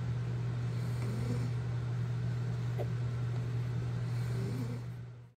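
A steady low mechanical hum, with faint squeaks and grunts from newborn puppies nursing now and then; it fades out near the end.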